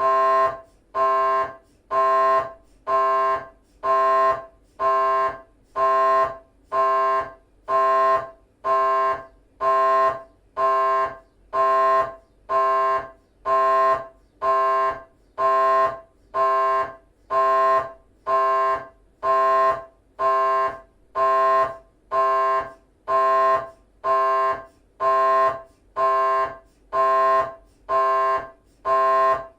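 GE 3 T MRI scanner running a T1 axial 3D FSPGR sequence: the gradient coils give a loud, pitched electronic buzz in regular pulses, about one a second with short gaps between.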